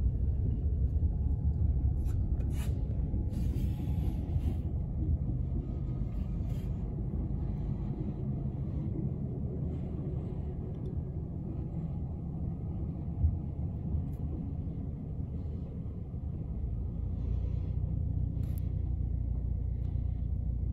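Low, steady rumble of diesel switcher locomotives rolling past with a covered hopper car, heard through the glass from inside a car, with a few faint clicks and one short knock.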